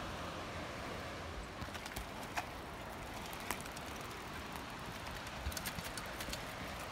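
A child's mountain bike rolling down a dirt trail: a steady hiss with scattered clicks and knocks from the tyres and bike, with a quick run of them near the end.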